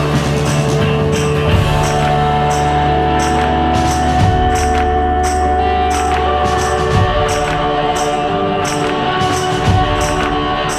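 Background music: sustained held tones under a steady beat of bright, tambourine-like percussive hits.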